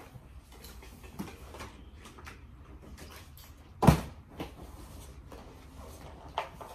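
A small cardboard product box being handled and turned over, with one sharp knock a little under four seconds in and a lighter click near the end.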